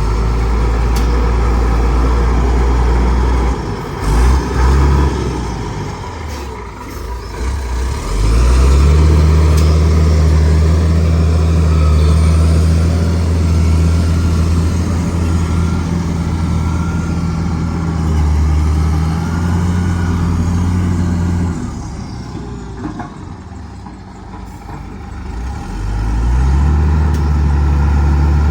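Bulldozer's diesel engine working hard: its note climbs about eight seconds in and holds steady, falls away around twenty-two seconds, and climbs again near the end. Two short loud knocks come about four seconds in.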